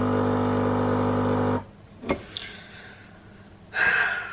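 Pod coffee machine's pump humming steadily as it pushes water through a packed reusable pod, then cutting off abruptly about a second and a half in. A click follows, and a short, louder noise comes near the end.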